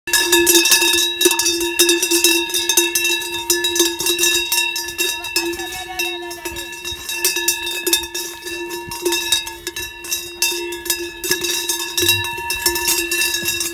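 Cowbells on fighting Hérens cows clanging without a break as the cows lock horns and shove each other: a steady bell tone with irregular sharp clanks over it.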